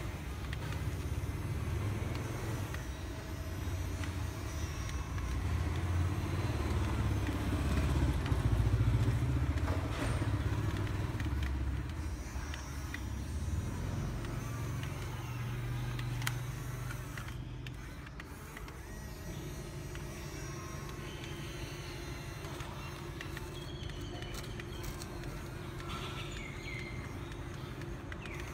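Radio-controlled CAT 320D long-reach model excavator working, its motors running as the arm digs, swings and dumps sand, over a steady low rumble that eases off a little past the middle.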